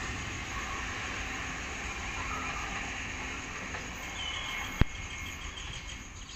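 Taipei Metro C301 train pulling away into the distance, its steady running noise slowly fading. A single sharp click about five seconds in.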